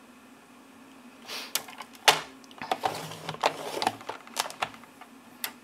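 Stampin' Up paper trimmer being used to score cardstock along the diagonal: after a quiet second, an irregular run of plastic clicks and short scrapes as the clear arm comes down and the scoring blade is drawn along its track, the sharpest click about two seconds in.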